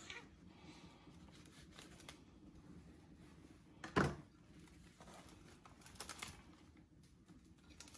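Faint rustling and crinkling of a cooked leaf parcel being cut open and unwrapped, with one sharp snap about four seconds in and more crinkling around six seconds.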